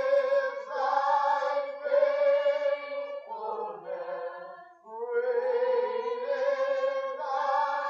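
A worship team's voices singing together in long held notes, with a short break about four and a half seconds in before the singing resumes.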